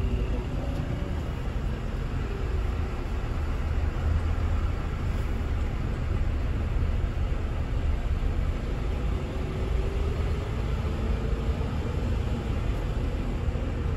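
Scania K360IB coach under way, heard from inside: a steady low drone of engine and road noise.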